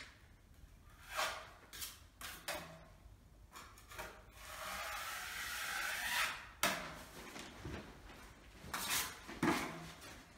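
Steel putty knife scraping filler compound across a painted wall in a series of short strokes, with one longer drawn-out stroke around the middle.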